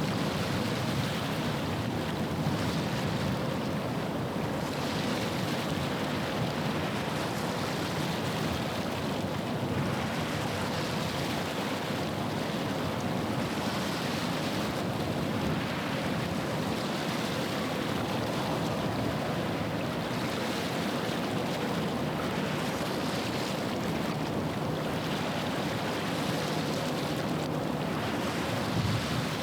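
Estuary water washing against the shore in repeated swells, with the low steady drone of a passing ship's engine underneath.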